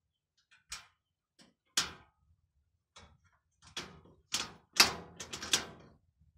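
Sheet-metal panels of a chicken nesting box being handled and fitted together, giving a string of sharp metallic clanks and taps. The loudest clank comes about five seconds in, within a quick cluster of knocks.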